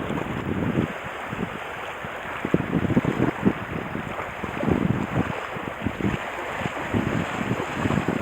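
Wind buffeting the microphone in uneven, rumbling gusts over a steady rush of water.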